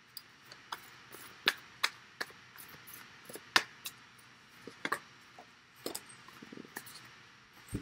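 Tarot cards being drawn and set down on a wooden table: an irregular string of light taps and clicks, with a few sharper ones.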